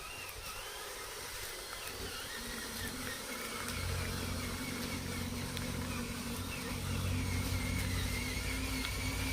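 Radio-controlled model bulldozer running, a low steady drone that grows louder about four seconds in.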